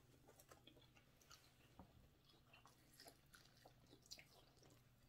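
Faint mouth sounds of a person chewing a chicken wing, with scattered small clicks and smacks.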